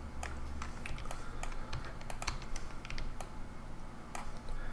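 Computer keyboard and mouse clicking, irregular short taps several times a second, over a low steady hum.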